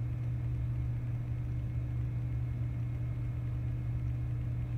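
Steady low background hum with no other sound.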